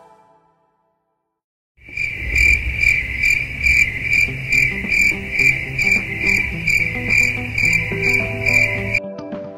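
Crickets chirping: a steady high trill pulsing about two and a half times a second. It starts about two seconds in, after a short silence, and stops abruptly near the end.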